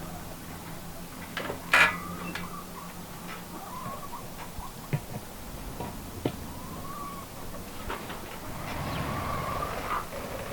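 Poultry calling: short rising-and-falling calls here and there, with scattered sharp clicks and taps, one louder click about two seconds in.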